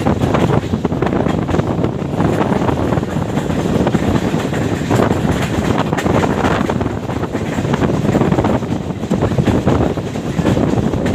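Passenger train running at speed, a steady rumble of wheels on rail mixed with wind buffeting the microphone.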